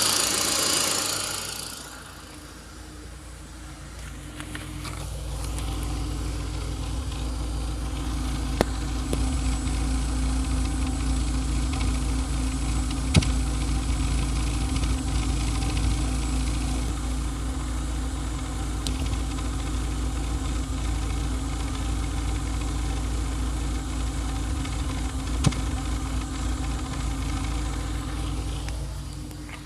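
Renault Clio 197's 2.0-litre four-cylinder engine idling steadily, with a few sharp single clicks, after a loud rushing noise that dies away in the first two seconds. The car is being checked for a strange noise from the engine bay and a hesitant exhaust.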